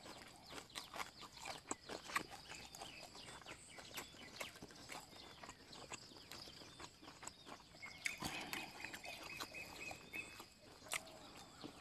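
Close-up chewing: wet mouth clicks and smacks as a mouthful of fish larb with raw herbs is chewed. There is a short, high, pulsing call about eight seconds in.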